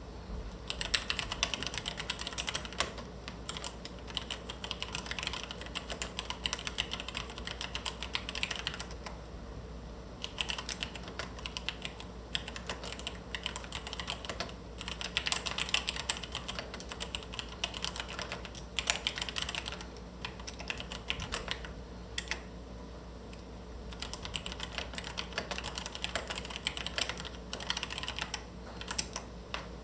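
Logitech G PRO mechanical gaming keyboard being typed on: a quick, continuous clatter of keystrokes in runs, broken by a few brief pauses.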